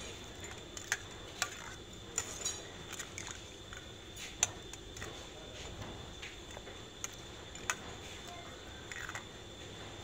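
Stainless-steel ladle clinking and knocking against a steel pot while stirring prawns in liquid, in scattered sharp clicks a second or so apart.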